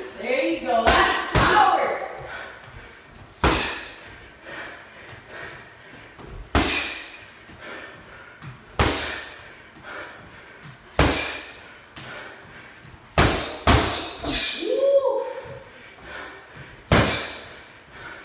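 Boxing gloves punching focus mitts: sharp slaps every two to three seconds, mostly single punches, with a quick double about a second in and a fast run of three about two-thirds of the way through.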